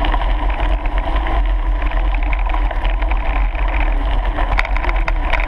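Wind rushing over the microphone of a camera moving along a gravel track, a steady loud rumble, with crunching and rattling from the gravel underneath.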